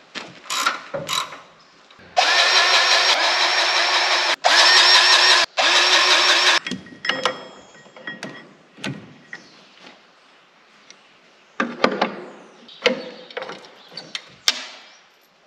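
A handheld power tool running hard in three bursts with brief stops between them, used on the bolts of a spreader's chain drive. Before and after the bursts come scattered metallic clanks and clicks from handling the chain and sprockets.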